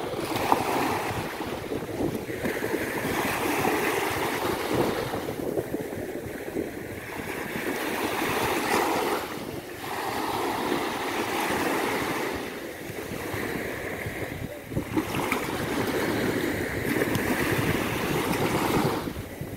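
Ocean surf: waves breaking and washing up a beach, a continuous rush that swells and eases every few seconds.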